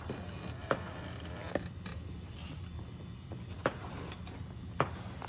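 Four sharp cracks, irregularly spaced, over a steady low background hum.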